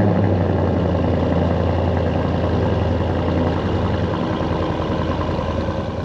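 Ford Raptor V8 with a Roush Performance exhaust idling loudly just after a cold start, a deep steady exhaust note echoing off concrete walls. About four seconds in the low note eases down slightly as the fast cold idle settles.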